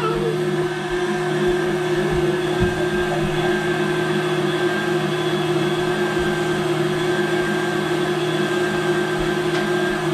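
KitchenAid Artisan stand mixer running steadily, its whisk beating marshmallow filling in the steel bowl: an even motor hum at one steady pitch.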